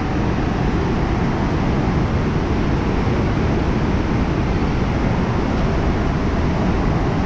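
The Rhine Falls, a broad waterfall, rushing over its rocks: a loud, steady wash of white water without a break.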